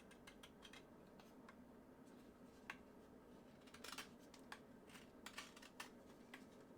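Near silence broken by a few faint, short scrapes and clicks from a folding pocket knife's steel blade being worked, about a second apart and bunched around the middle.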